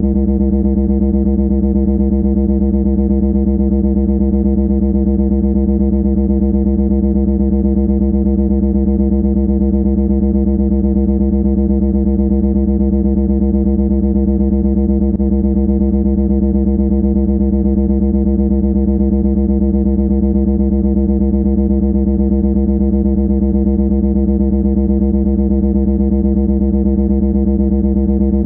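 A loud, unchanging low buzzing drone: one steady pitch with many overtones and a fast raspy pulse.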